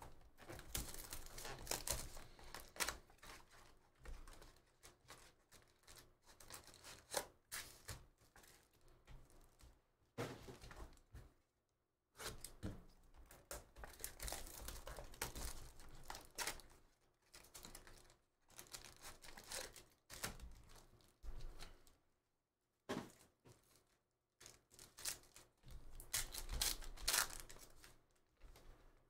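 Sealed 2023 Bowman's Best trading-card packaging torn open and crinkled by hand, in bursts of tearing and rustling with short pauses between.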